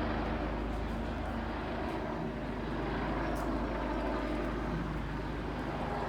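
A helicopter flying close by, a steady low drone of engine and rotor.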